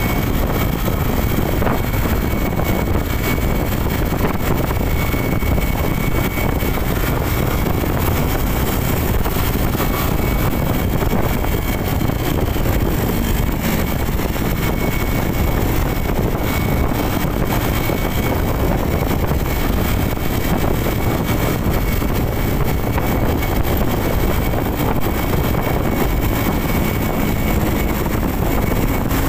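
Riding noise from a motorcycle moving at a steady speed: an even rush of wind and road noise with the engine running underneath. It stays unchanged throughout, with a faint steady high whine.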